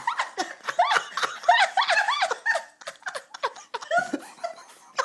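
People laughing: a run of quick, high giggles and chuckles, thinning out in the second half.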